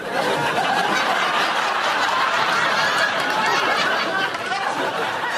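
Several voices snickering and chuckling together, overlapping without a break.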